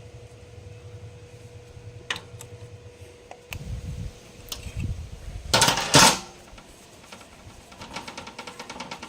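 Metal tools or parts being handled: a few sharp clicks, a loud metallic clatter a little past halfway, then a quick run of rapid ticks near the end.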